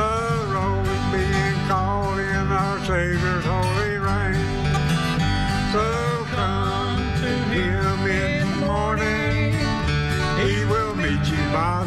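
Country gospel music in a bluegrass style: acoustic guitars over an electric bass, with a lead line that slides between notes.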